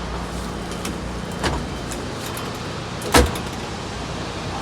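Front windshield of a mini excavator's cab being raised: a clunk about a second and a half in, then a louder clunk about three seconds in, over a steady low hum.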